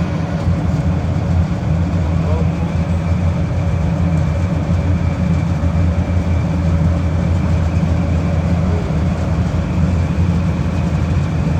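Refrigeration condensing unit running: a steady, loud mechanical hum from the compressor and condenser fan, even and unchanging throughout.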